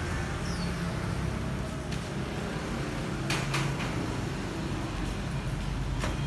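Aftermarket electric tailgate on a Honda CR-V closing under power, its drive running with a steady low hum. There are a couple of short clicks about three and a half seconds in, and a sharp click near the end as the tailgate shuts and latches.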